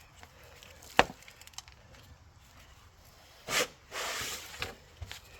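A single sharp knock about a second in, then a brief scraping rustle near the end, as old strut hardware and a nut are worked loose and handled.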